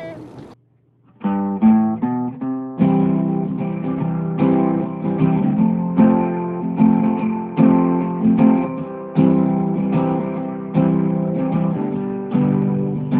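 Acoustic guitar music: after a brief silence near the start, a run of quick picked notes, then steady rhythmic strummed chords.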